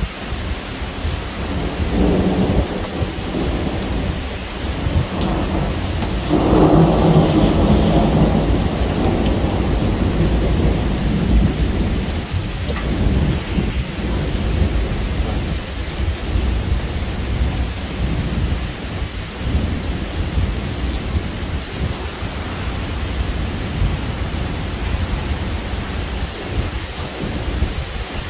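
Thunder rumbling twice over steady rain: a shorter roll about two seconds in, then a louder, longer one a few seconds later that dies away.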